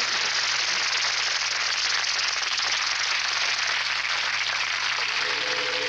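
Audience applauding, a steady even clatter of clapping. Near the end a steady pitched hum with overtones comes in.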